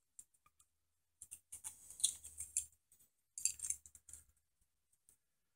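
Faint clicks and scrapes of small 3D-printed plastic parts and wired LEDs being handled and pressed into place by hand, in two short spells, one from about a second in and one just past the middle.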